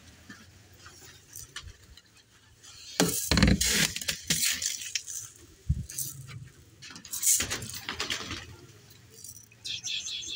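Bursts of clinking and rattling handling noise, in two clusters a few seconds apart, with a couple of duller knocks.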